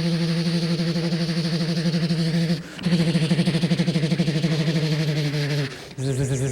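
A man's voice imitating an aircraft engine: a steady droning hum that breaks off twice and comes back each time lower in pitch, turning into a rapid flutter about three seconds in, like a craft coming in to land.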